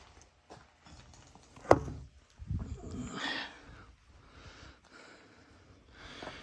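Quiet handling noises: a sharp click or knock about a second and a half in, then a brief rustle, with a few faint ticks.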